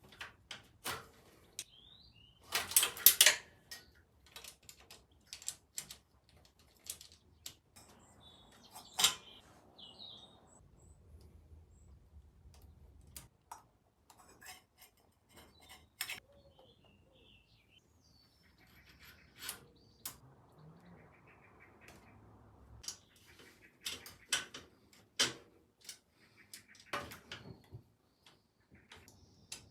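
Scattered clicks, taps and knocks of hand tools and metal parts as a parking brake is fitted to a quad bike, with a louder burst of clatter about three seconds in.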